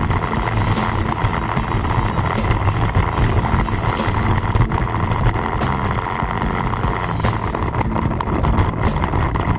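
Quad ATV engine running steadily under way, with wind noise on the microphone and three brief hissing surges.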